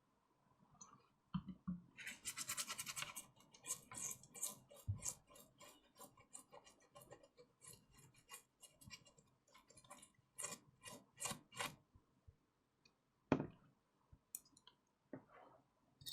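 Brush scrubbing a circuit board in quick back-and-forth strokes, a dense burst about two seconds in and then shorter strokes about two a second, as when cleaning flux from around freshly soldered HDMI port pins. A single knock near the end.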